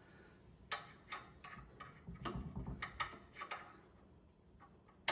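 A string of light, irregular clicks and knocks from handling metal mounting hardware on the hose reel bracket, about a dozen over three seconds, then quiet.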